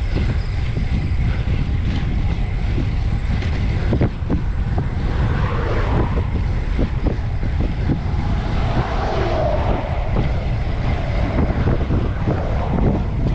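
Wind rushing over the microphone of a camera mounted low on a bicycle ridden at full effort: a steady low rumble with many small knocks from the road surface.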